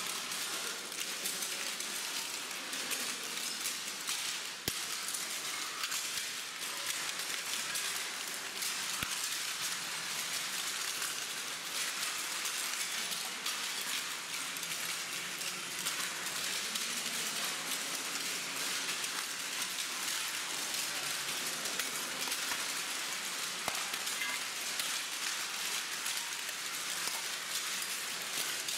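Many people walking over a floor covered in sheets of paper: a continuous dense crackling and rustling of paper underfoot.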